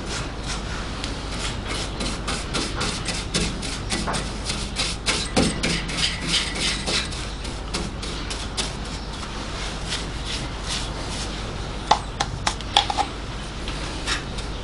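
Small paintbrush dabbing and scrubbing rust converter and sealer onto bare, rusty steel sill metal, a quick run of scratchy ticks and scrapes. A few sharper taps come near the end.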